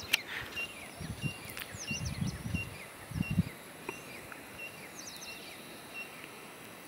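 Wild birds calling in open scrub: one short high note repeated evenly about every two-thirds of a second, with scattered quick chirps around it. A low rumble runs under the first three and a half seconds, then stops.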